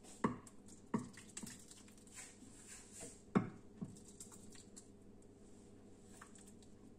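Soup being poured from a pot into an earthenware cazuela: a handful of short plops and knocks in the first four seconds, the loudest a little past three seconds in, then only a faint steady background.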